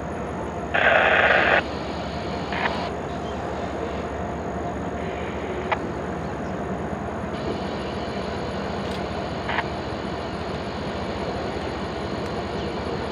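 Railroad scanner radio between transmissions: a short burst of squelch static about a second in, then steady background hiss with a few faint clicks.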